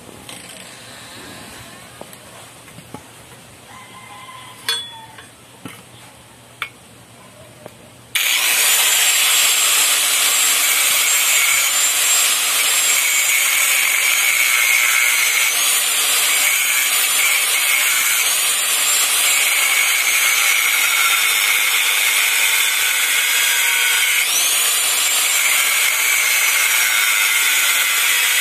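A few light metal clinks of hand tools. Then, about eight seconds in, a disc power tool starts abruptly and cuts or grinds metal with a loud, steady rasp. Its high whine dips and rises again several times.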